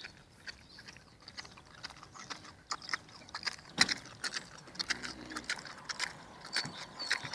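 Domestic pig chewing and smacking at soft white-mould cheese and bread: a run of irregular clicks from its mouth, some louder than others.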